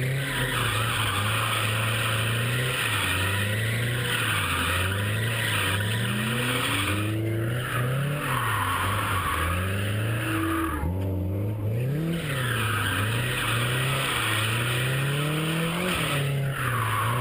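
1995 Nissan 240SX drifting: the tyres squeal in long stretches while the engine revs rise and fall again and again. The tyre squeal breaks off briefly about seven, eleven and sixteen seconds in.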